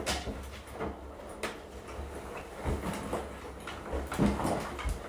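Scattered knocks and thuds of a hotel room door being opened and a wheeled suitcase being handled through the doorway, over a low rumble.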